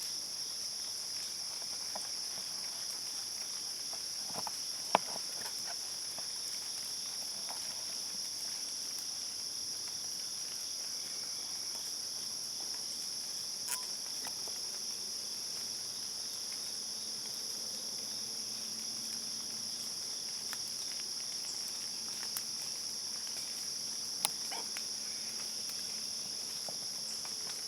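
Steady chorus of insects such as crickets, a continuous high-pitched trilling that does not change, with a few sharp clicks, the loudest about five seconds in.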